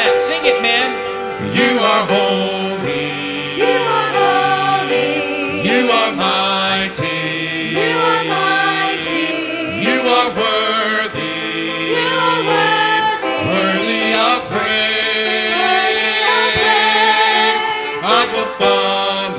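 Church worship team singing a praise song into microphones, several voices together, over steady instrumental accompaniment.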